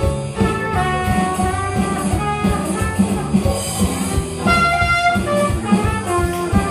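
Small live trad jazz band playing an instrumental chorus: trumpet and clarinet lines over electric bass, keyboard and electronic drums keeping a steady beat.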